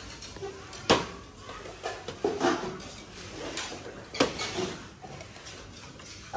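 Dishes being handled: scattered knocks and clinks, the sharpest about a second in, with a few lighter ones after.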